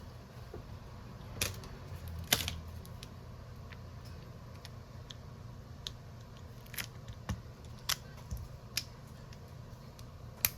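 Scattered small clicks and taps from tools and parts being handled during a phone screen repair, a dozen or so, irregularly spaced, the sharpest about two seconds in and near the end, over a steady low hum.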